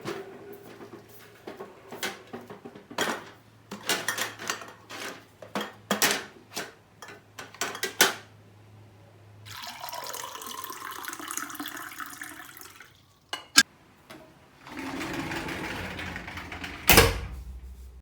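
A seasoning trolley is dragged along, rattling with many clicks, for about the first half. Then water is poured for a few seconds, followed by two sharp clicks. Near the end a sliding door runs along its track and shuts with a loud thump.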